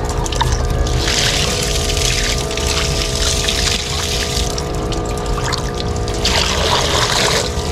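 Water poured from a steel basin over a fine-mesh daphnia net, running through the mesh and splashing onto wet ground in three separate pours as the daphnia are rinsed and strained. A steady low hum runs underneath.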